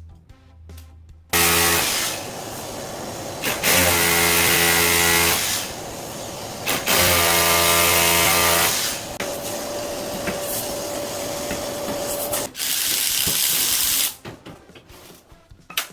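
Electric power tool running under load in several long bursts, starting about a second in and stopping near the end.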